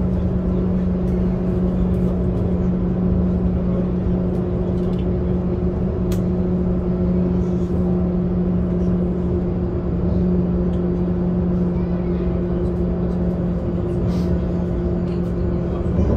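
A Talent 2 (class 442) electric multiple unit running at steady speed, heard from on board: a constant electric hum of several steady tones over the rumble of wheels on rail, with one sharp click about six seconds in.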